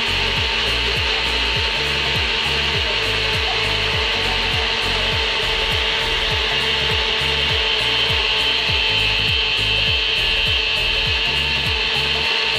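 NutriBullet personal blender motor running steadily, pureeing fruit with a little water. A steady low beat, about two a second, runs underneath.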